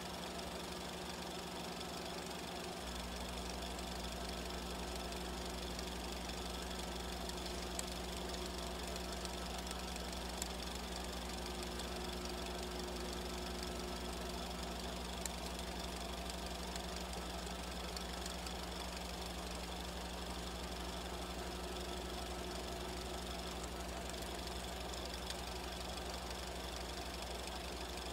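Film projector running: a steady low hum and hiss with a few faint ticks.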